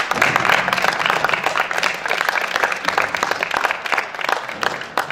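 A small group of people clapping their hands together in applause, a dense run of claps that thins out near the end.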